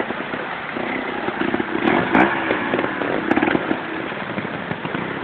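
Sherco trials motorcycle engine running at low speed with quick throttle blips as the bike climbs over rocks, with one sharp rev rising and falling about two seconds in.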